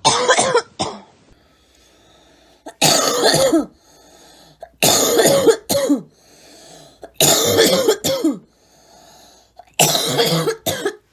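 A young woman coughing in repeated fits: five bouts of coughs, each about a second long, coming roughly every two seconds with quiet gaps between them.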